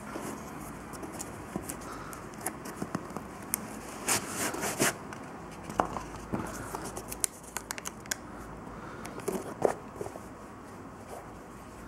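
Paper packaging and a suede slipper being handled: crinkling and rustling with scattered light clicks and taps. The loudest rustling comes about four to five seconds in, with another sharp rustle near the end.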